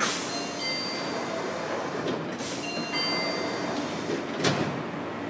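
Fukuoka City Subway 1000N-series car heard from inside over a steady rumble. A chime of several steady electronic tones plays twice, about two and a half seconds apart. A sharp clunk comes at the start and another about two and a half seconds in, and a heavier, lower thud about four and a half seconds in is the loudest sound.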